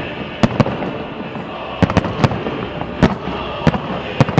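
Fireworks display: about eight sharp bangs at irregular intervals, some close together in pairs, over a continuous din of noise.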